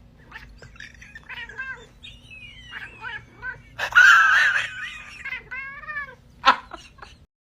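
Domestic cat meowing in a long chatty string of short, bending calls, with a louder, harsher yowl about four seconds in; the calls stop just before the end.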